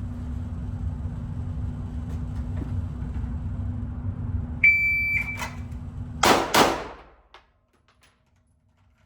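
A shot timer's start beep, about half a second long, then about 1.6 s later two pistol shots fired in quick succession, about a third of a second apart. A steady low hum runs under it until the shots, after which it goes nearly silent.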